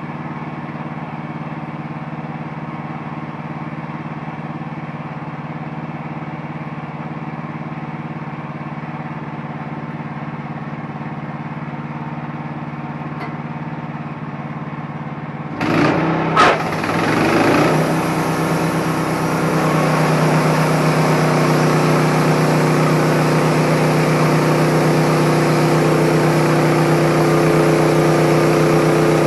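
Engine of a Wood-Mizer LT15 portable bandsaw mill idling steadily. About sixteen seconds in there are a couple of sharp clunks as it is throttled up, and it runs on louder and higher at sawing speed.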